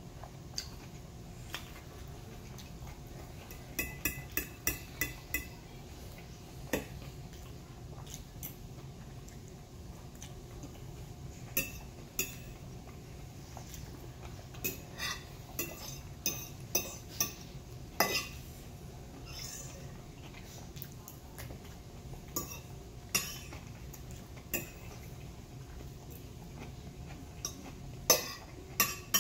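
Metal fork clinking and scraping against a plate while eating, in scattered sharp taps, a few of them ringing briefly.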